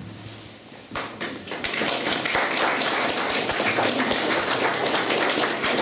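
Audience applauding: a few claps come about a second in, and from about a second and a half the clapping is dense and steady.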